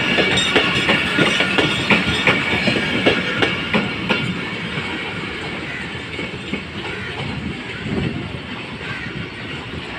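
Pakistan Railways passenger coaches rolling past, their wheels clacking over the rail joints about two to three times a second. The clacks fade about halfway through as the last coach draws away.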